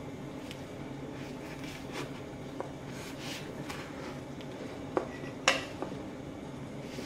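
A large kitchen knife cutting through a baked sweet potato and knocking against a wooden cutting board, with soft scraping and two sharp knocks about five seconds in, the second the loudest. A steady low hum runs underneath.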